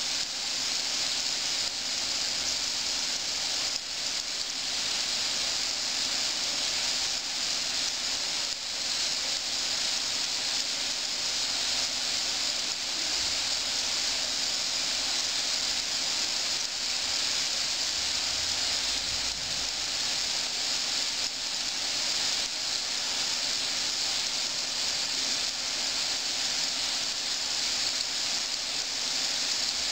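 Hot oil sizzling steadily around Colombian corn buñuelos (corn-dough fritters) deep-frying in a pot at medium heat.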